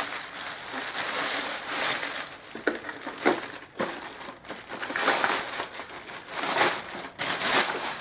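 Plastic wrapping being pulled off and crumpled by hand, irregular crinkling that comes and goes throughout.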